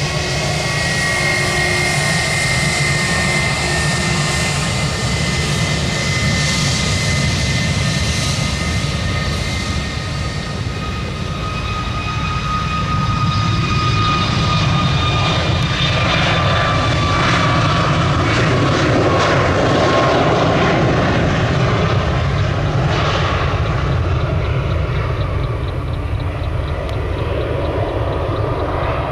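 Boeing 737 MAX 8's CFM LEAP-1B turbofan engines at takeoff thrust during the runway roll. A loud, steady jet rumble carries a high fan whine that slowly drops in pitch as the jet passes.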